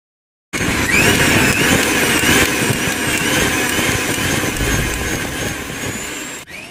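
Loud, noisy intro sound effect with a wavering whine, like a motor or power tool running. It starts suddenly about half a second in and fades out near the end.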